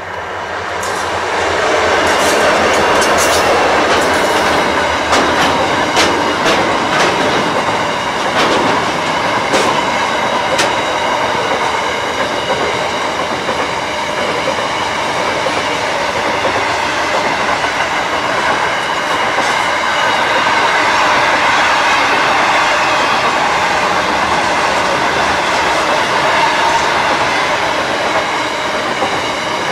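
A diesel freight train passing close by. It grows louder over the first two seconds as the locomotive comes past, then a long line of hopper wagons rolls by with a steady wheel rumble. Sharp wheel clicks are frequent in the first ten seconds or so.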